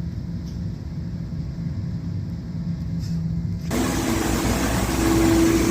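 Duct-cleaning equipment running: a low, steady engine-like hum, then about two-thirds of the way through a loud rushing of air cuts in abruptly, with a steady whine joining it near the end.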